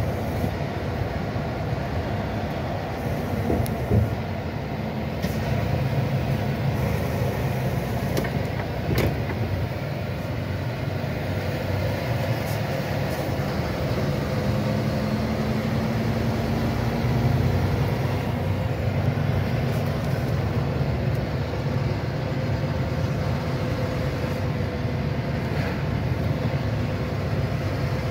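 Road vehicle driving along, heard from on board: steady engine and tyre noise, with the engine pitch rising slowly around the middle and a few brief knocks in the first third.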